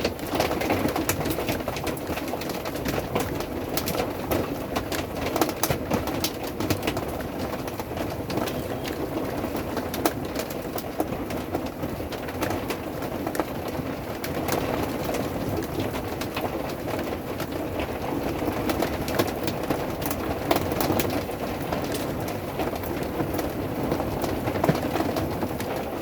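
Steady rain on a camper roof after a hailstorm: a dense, even patter with many sharper taps scattered through it.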